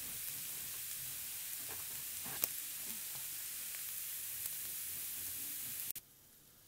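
Chopped mushrooms sizzling in a frying pan: a steady high hiss with scattered small crackles and one louder pop about two and a half seconds in. The sizzle cuts off suddenly near the end.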